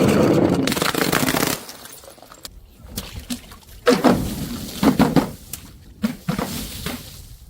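Glass bottle shattering: a dense crash of breaking glass that dies away about a second and a half in. It is followed by a few sharp knocks and clinks a couple of seconds later.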